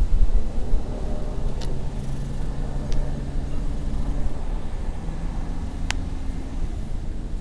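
A steady low motor hum, with rumbling wind on the microphone at the start and a few faint clicks.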